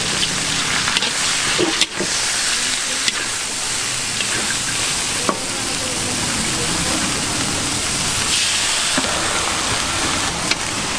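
Bean sprouts and vegetables sizzling steadily in a large steel wok while being stir-fried, with a metal ladle clicking against the wok a few times.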